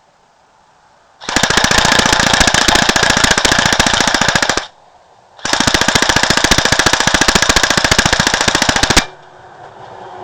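Pulse R76 AK-74-style airsoft rifle firing two long bursts on full auto, a rapid even rattle of shots, with a short break between the bursts.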